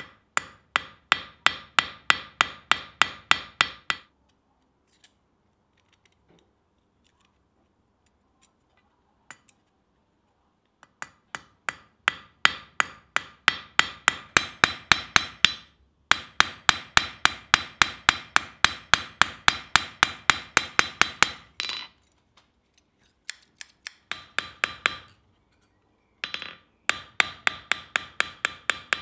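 Small ball-peen hammer peening over the pivot rivet of a pair of hand-forged steel scissors on an anvil. Runs of quick light strikes, about four or five a second, each with a bright metallic ring, broken by pauses of a few seconds.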